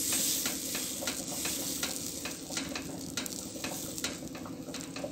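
Dosa batter sizzling and crackling on a hot tawa as a spoon spreads it round, the spoon rubbing over the griddle; the tawa has got too hot.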